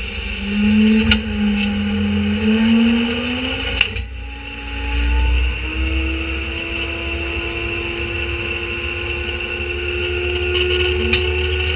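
Autocar garbage truck's diesel engine and drivetrain under way, a low rumble with a whine that climbs in pitch. It drops out briefly around four seconds in, like a gear change, then rises slowly again. The empty hopper rattles with a couple of sharp knocks near the start.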